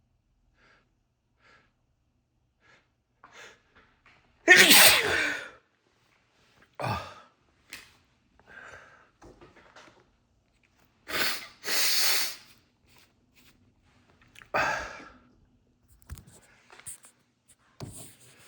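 A man sneezing over and over, a fit brought on by sneezing powder: about five loud sneezes with short breaths between them. The first, about four seconds in, is the loudest.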